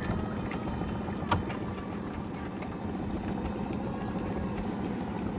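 Small boat's outboard motor running steadily at low revs, with a single knock about a second in.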